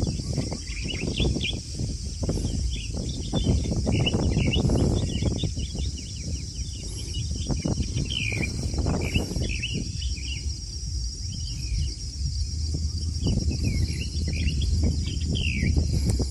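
Outdoor ambience of birds chirping in short, repeated calls over a steady high-pitched drone, with an uneven low rumble underneath.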